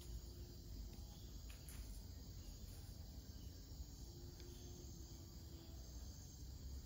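Faint, steady chirring of night insects, with a low rumble underneath.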